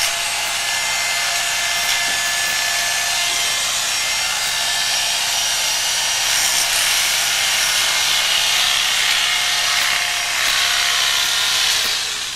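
Corded electric hair clippers running steadily while shearing long hair close to the scalp at the back of the head. They stop near the end.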